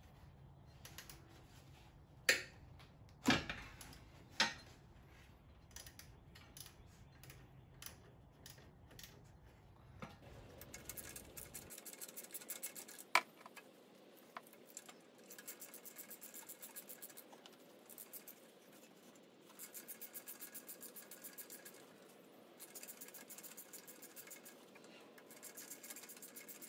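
Socket ratchet clicking in quick runs of turns while loosening the bolts on a 2.5L Jeep four-cylinder's power steering pump. There are a few sharp metal clinks of tools on the engine about two to four seconds in.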